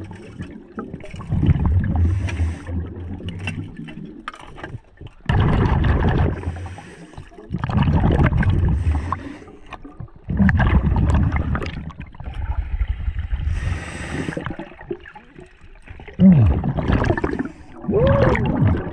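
Scuba regulator breathing heard underwater: rushes of exhaled bubbles every two to three seconds, with fainter hissing inhalations between them.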